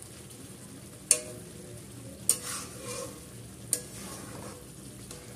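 Spatula stirring and scraping thick chicken masala gravy in a steel kadai, with three sharp knocks of the spatula against the pan over a low sizzle of the gravy frying.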